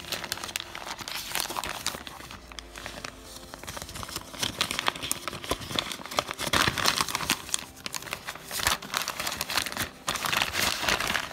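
Plastic mailer bag being handled and torn open by hand, crinkling and rustling in irregular crackles that get louder about halfway through.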